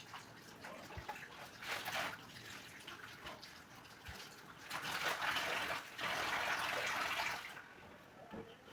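Running water splashing, in a short burst about two seconds in and a louder, steadier run from about five to seven and a half seconds, then easing off.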